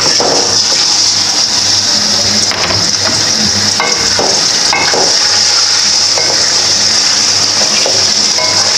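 Raw chicken pieces sizzling loudly in hot oil in an aluminium karahi. The sizzle starts abruptly as they are tipped in and then holds steady, while a spatula stirring the pieces knocks and scrapes against the pan now and then.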